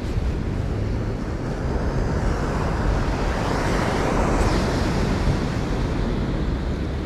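Sea surf washing on the shore, with wind buffeting the microphone as a low rumble; the wash swells up about halfway through and eases off again.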